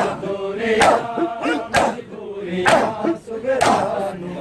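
A crowd of men chanting a noha in unison, with rhythmic matam: hands slapping chests together in sharp beats about once a second.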